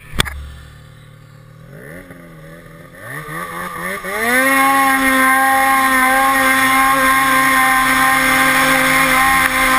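Race-prepped Ski-Doo 872 cc big-bore E-TEC two-stroke snowmobile engine: a sharp click at the very start, then the engine is blipped twice, and about four seconds in it is opened up for the launch, rising and then holding a steady high pitch as the sled accelerates up the hill.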